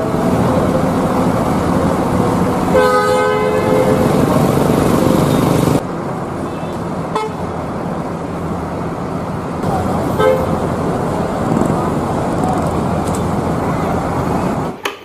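Bus horns over idling and moving bus engines. One horn tails off right at the start, a longer two-tone blast sounds about three seconds in, and a brief toot comes about ten seconds in.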